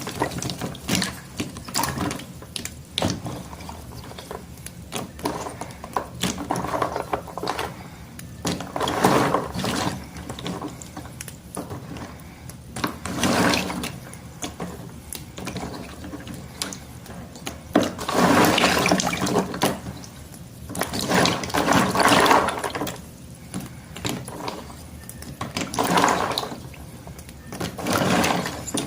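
Wet school chalk sticks being broken and worked by hand in water: the water swishes in swells every few seconds, with short crackles and snaps in between.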